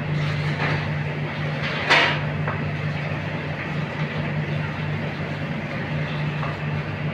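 Vegetable cutlets deep-frying in hot oil in a steel kadai: a steady sizzle, with a low steady hum underneath and one sharp click about two seconds in.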